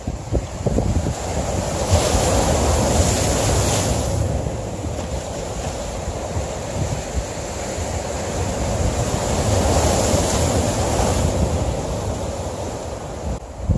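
Sea waves breaking and washing over shoreline rocks, swelling twice about seven seconds apart, with wind rumbling on the microphone.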